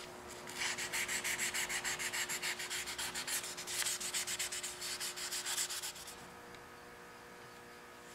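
Fine 600-grit sandpaper wet-sanding an oil-soaked teak handle, rubbed back and forth in quick short strokes about five a second. The strokes stop about six seconds in.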